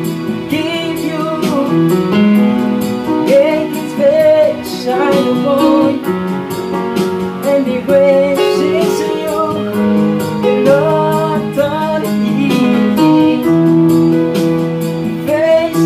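Electronic arranger keyboard playing a slow gospel worship tune: held chords under a melody that bends and wavers, over a light steady beat.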